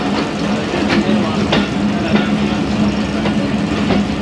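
A train standing at a station with its diesel engine idling in a steady hum, with a few short clicks or knocks over it.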